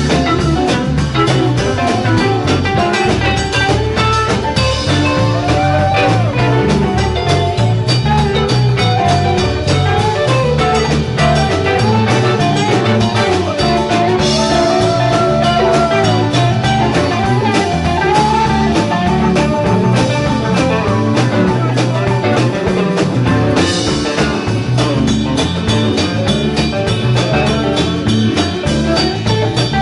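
Live rock band playing an instrumental jam: an electric guitar lead with bending, gliding notes over electric bass and a drum kit keeping a steady beat.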